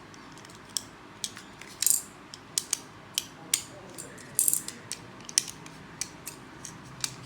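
Plastic Lego bricks clicking and clattering as they are handled and fitted together: a run of sharp, irregular clicks, with a few louder rattling clusters.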